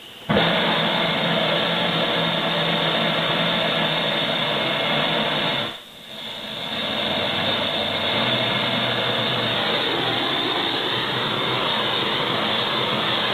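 Handheld gas torch flame starting suddenly and running with a steady loud hiss, used to heat and reform a subwoofer's plastic cone. About six seconds in the flame sound cuts out briefly, then comes back and holds steady.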